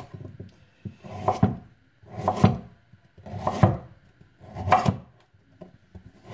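Kitchen knife slicing through a raw carrot on a wooden cutting board: four slow, deliberate cuts about a second apart, each cutting through and ending on the board.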